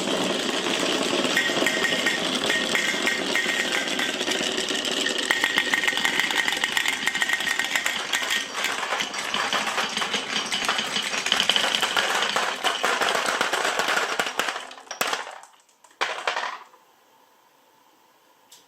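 Many glass marbles rolling and clattering down marble-run slopes in a dense, continuous rattle that dies away about three-quarters of the way through. One last short clatter follows, then near silence.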